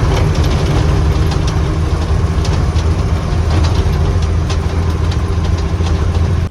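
Grain truck engine running steadily while driving, with a strong low rumble and a few scattered rattles.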